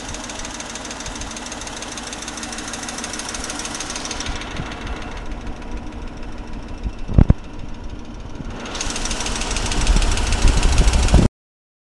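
Audi A8 4.2 quattro's V8 engine running, heard from the engine bay with the strange noises the owner is recording. There is one loud thump a little past the middle, and the sound cuts off suddenly near the end.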